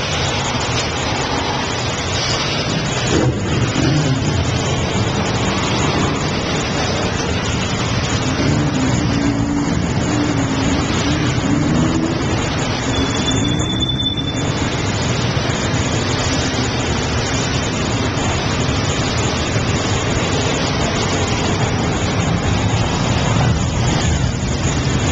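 Several motorcycle and scooter engines running as a group rides slowly together, a loud steady mix of engine noise and road noise, with a short high-pitched tone about thirteen seconds in.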